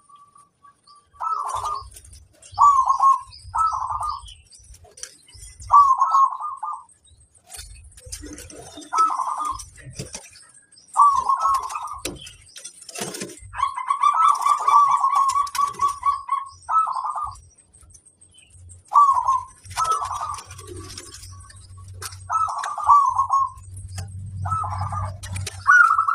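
Zebra dove (perkutut) cooing: a series of short trilled phrases at much the same pitch, about a dozen of them, with one longer drawn-out phrase near the middle. This is the kind of strong 'master' song used to coax other perkutut to answer.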